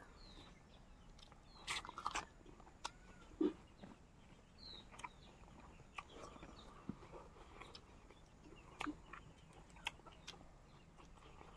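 Quiet eating: chewing with scattered soft clicks and smacks of food and mouths, spread irregularly through the stretch.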